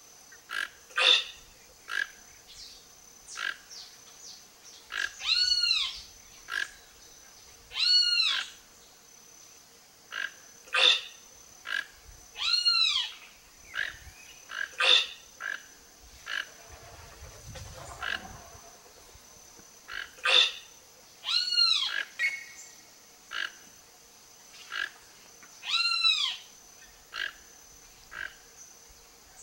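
Toco toucan calling: a series of short calls about every one to two seconds, the louder ones rising and falling in pitch.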